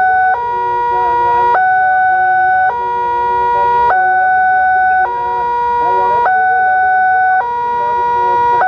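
Wantech-type railway level-crossing alarm sounding its warning while the barriers are down, signalling that a train is approaching. A loud electronic two-tone signal switches steadily between a lower and a higher tone, each lasting a little over a second.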